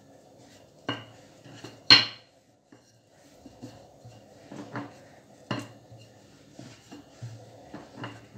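Wooden rolling pin rolling brioche dough on a granite countertop: a low rolling rumble with several sharp knocks of the pin against the stone, the loudest about two seconds in.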